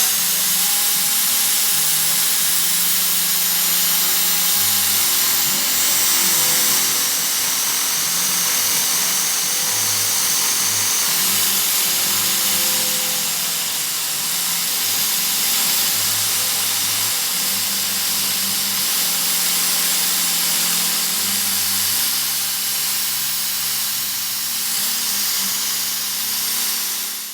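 A power tool running steadily under load, a continuous loud whirring noise that cuts off suddenly at the end.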